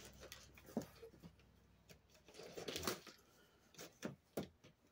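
Knife cutting through packing tape and cardboard on a shipping box: faint scraping with scattered small taps and clicks, and a longer scrape about two and a half seconds in.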